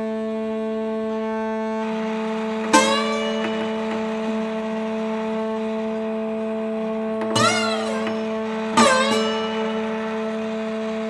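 Ambient music: a steady drone of held tones with plucked guitar notes about three seconds in and again twice later, each bending in pitch as it rings out.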